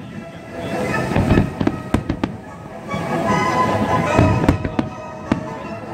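Aerial firework shells bursting overhead with a series of sharp bangs and crackle over continuous music.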